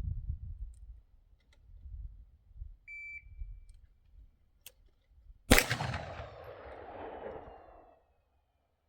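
A single AR-style rifle shot about five and a half seconds in, its echo dying away over about two seconds. A short, high electronic beep sounds a couple of seconds before the shot.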